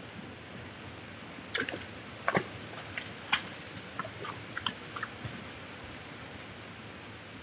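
Irregular snaps and crackles of a red deer's hooves on twigs and leaf litter as it walks away from a muddy wallow, loudest in the middle, over the steady hiss of a trail camera's microphone.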